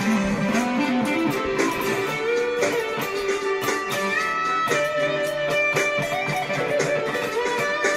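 Electric guitar played through a BOSS Power Stack distortion pedal, improvising a melodic line in E minor: held, sustaining notes with pitch bends and slides.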